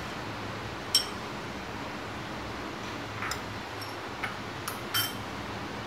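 A spoon clinking against a glass bowl and a steel mixer jar as chopped ginger is spooned in: one sharper ringing clink about a second in, then several lighter taps near the end, over a steady faint hiss.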